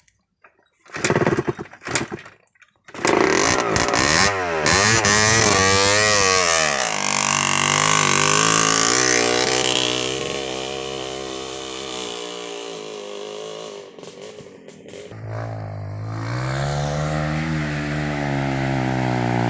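Dirt bike engine revving hard on a steep trail climb, its pitch swinging up and down, after a few short sputters as it catches. The sound dips a little past the middle, then builds again.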